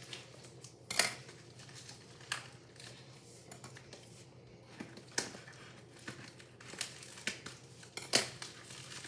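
Scissors cutting open packaging: about six sharp snips at irregular intervals, the loudest about a second in and near the end, with packaging crinkling between them.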